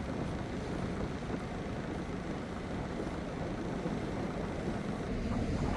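Steady low rumble of sea surf, with wind buffeting the microphone.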